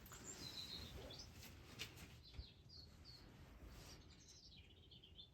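Faint, scattered high chirps of small birds over near silence.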